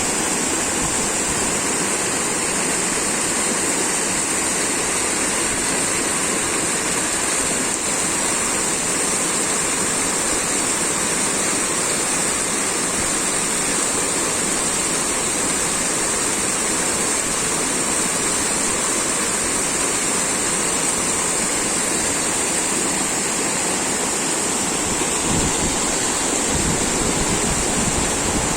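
Waterfall: a steady, unbroken rush of falling water. Wind buffets the microphone in low gusts near the end.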